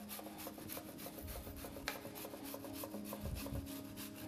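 Onion being grated on a stainless-steel box grater: quick, even rasping strokes of the onion over the grater's teeth.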